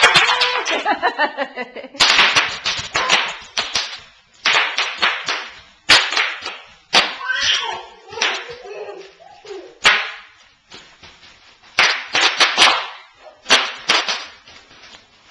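Bubble wrap popping under stomping feet: clusters of sharp rapid pops, several bursts with short pauses between.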